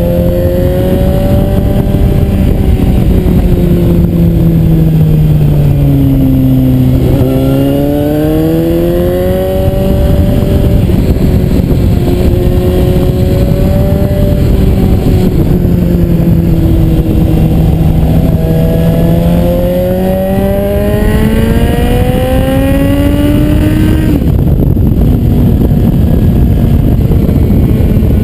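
Suzuki GSR 750's inline-four engine under way on a winding road, its note falling and climbing again as the throttle is eased and opened through the bends, over heavy wind rush on the bike-mounted camera. Near the end the engine note drops away sharply.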